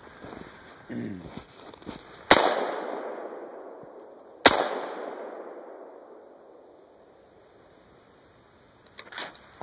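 Two single rifle shots from a Ruger AR-15 in 5.56, about two seconds apart, each followed by a long echo that dies away over several seconds. A fainter pop comes near the end.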